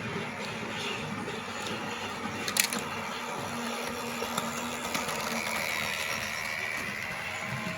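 Battery-powered Lego Duplo toy train running along its plastic track, a steady small-motor whir, with one sharp click about two and a half seconds in.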